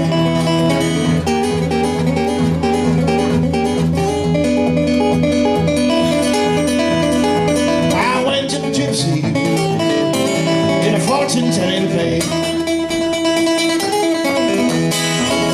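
Acoustic guitar playing an instrumental break of a country blues, picked notes over a steady repeating bass line.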